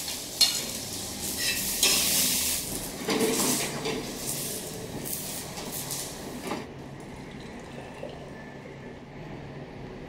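An omelette frying and sizzling in a pan, with a spatula scraping and clicking against the pan. About seven seconds in the sizzling and scraping stop, leaving a much quieter steady background.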